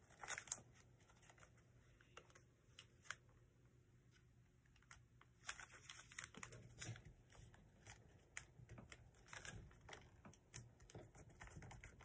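Faint, scattered crackles and taps of a sheet of paper being folded and creased by hand. They are sparse at first and busier from about halfway through.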